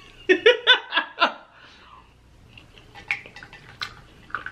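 A short burst of laughter, a quick run of four or five 'ha' pulses, then a few sharp snaps and crackles as cooked crab leg shells are broken apart by hand.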